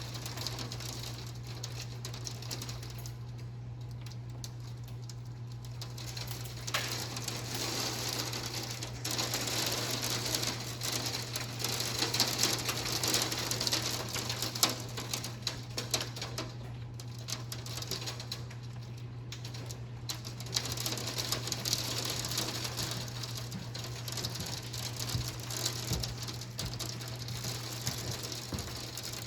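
Hail pattering down in a dense, fast stream of small ticks, thinning out twice and then thickening again.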